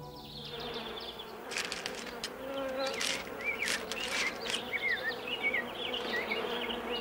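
Buzzing insects, with short high chirps repeating from about three seconds in.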